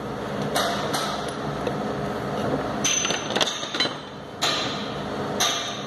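A handful of sharp metallic knocks and clinks, spread a second or so apart, some with a brief ringing tail, over a steady low workshop hum.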